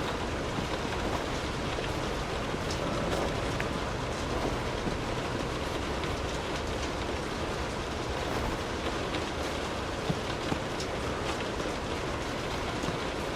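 Steady rain falling, an even hiss with scattered sharper drops ticking on a surface.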